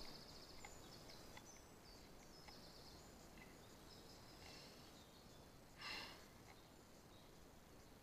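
Near silence outdoors, with faint distant birdsong of short high chirps and trills. One brief breathy puff of noise comes about six seconds in.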